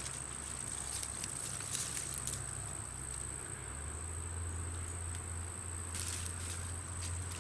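Twigs and leaves rustling and crackling in short bursts as a hand pushes into a shrub to grab a snake. Under it run a steady, high-pitched insect trill and a low steady rumble.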